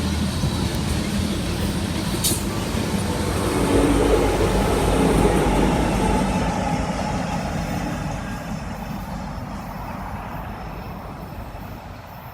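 Loaded coal train rolling past, its wheels rumbling on the rails. A brief sharp click comes about two seconds in, the rumble swells around four seconds in, then it fades steadily as the train moves away.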